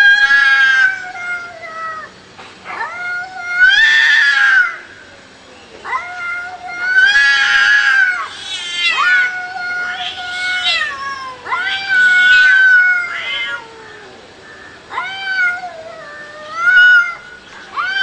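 Cats caterwauling in a fight: a string of long, drawn-out yowls, each a second or two, wavering and bending in pitch, one after another with short gaps.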